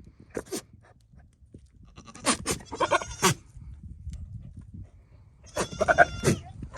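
Nigerian dwarf buck making his rutting courtship calls at a doe in heat: a short call just after the start, then two bouts of quick, stuttering pitched calls, about two seconds in and again near the end.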